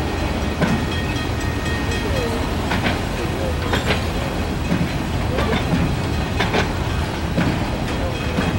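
Freight wagons of a train rolling past close by: a steady rumble of wheels on rail with irregular sharp clacks, about one a second, as the wheels cross the rail joints.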